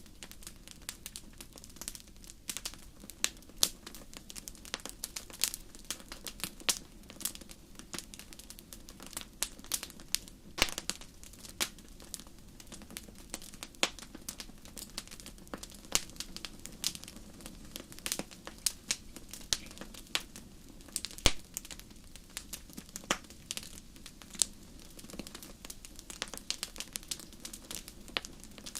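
Wood fire crackling: a steady stream of irregular sharp pops and snaps over a low hiss, with a few louder pops now and then.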